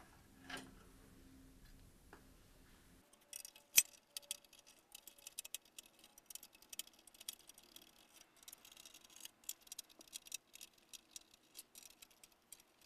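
A screwdriver working screws in a sheet-metal projector chassis: a run of small, irregular metallic clicks and ticks, with one louder click about four seconds in.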